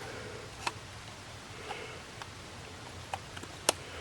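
A few light clicks and taps from small parts and tools being handled on a Canon 5D Mark III body during reassembly, the sharpest about a second in and another near the end.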